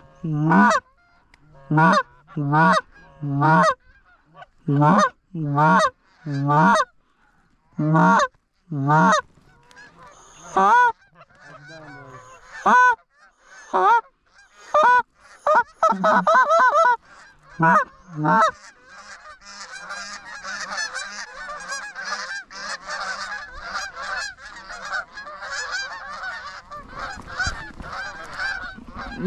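Canada geese honking: loud, separate honks and clucks, one or two a second, for the first half, then from about 19 s in a flock honking all at once in a dense, unbroken chorus.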